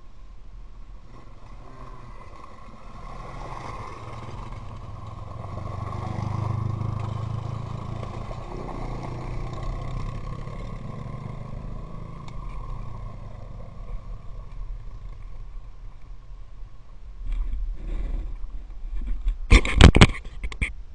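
ATV engines running as quad bikes ride along a gravel and dirt trail, the rumble growing louder about six seconds in and then easing off. Near the end come a few very loud, sharp bursts of noise on the microphone.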